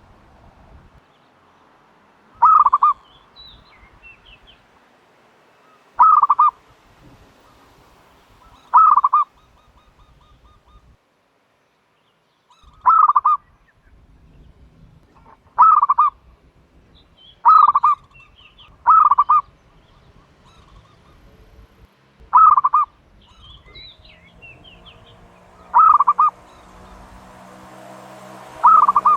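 Turtle dove cooing: about ten short calls spaced a few seconds apart, each a quick run of notes at the same pitch, with faint higher chirps of small birds between them. Music begins near the end.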